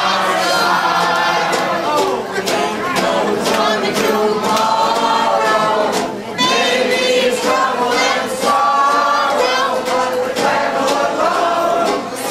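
Strolling band of men singing together, accompanied by banjo, tuba and tambourine, with sharp tambourine-like clicks scattered through.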